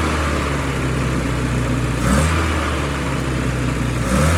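Toyota four-cylinder engine in a 1976 Chinook camper running at a steady idle, with a brief throttle blip about two seconds in and another near the end.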